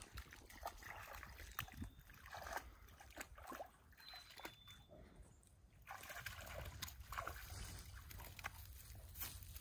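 A dog wading at the edge of a shallow stream, its paws sloshing and splashing faintly in the water in irregular bursts.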